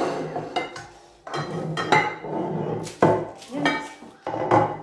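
Pots, lids and a glass baking dish being handled and set down on the hob and worktop: a series of sharp clanks and clinks.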